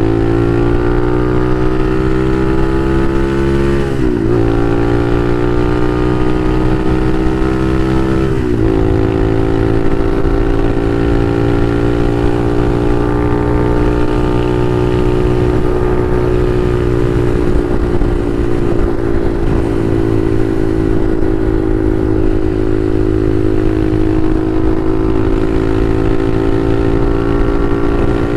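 Bashan Motomax 250 supermoto engine accelerating under load, its pitch climbing and then dropping sharply as the rider shifts up, about 4 and 8.5 seconds in. It then holds a steady, slightly wavering pitch at cruising speed.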